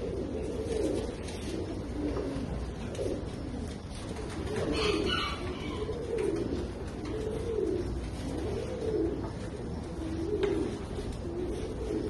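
Pigeons cooing: a steady series of low coos, each rising and falling in pitch, about one a second, over a steady low hum.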